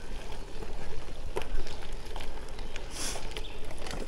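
Gravel bike tyres rolling over a dirt-and-gravel trail: a steady rough rumble with scattered sharp ticks and rattles from stones and the bike, and a brief hiss about three seconds in.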